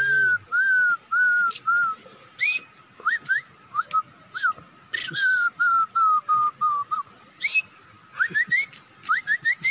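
A man whistling with his mouth in imitation of a bird call: runs of short falling whistles, about two a second, twice broken by quick rising chirps.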